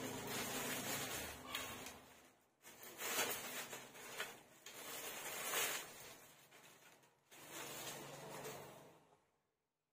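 Rustling and handling noise in several swells of a second or two each, with a few faint clicks, cutting off abruptly shortly before the end.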